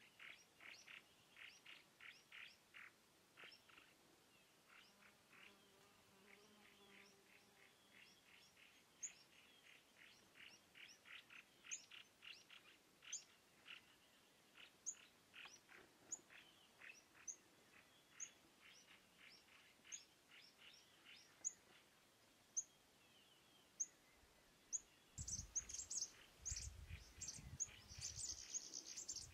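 Faint bird chirping: a quick series of short chirps with single higher chirps over it, becoming louder and denser near the end with a low rumble underneath.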